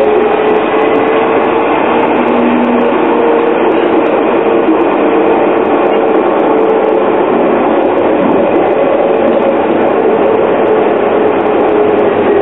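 Interior running noise of a moving Luas tram (Alstom Citadis): a steady rumble of wheels on rail heard from inside the passenger cabin, with a steady tonal whine from the traction drive over it.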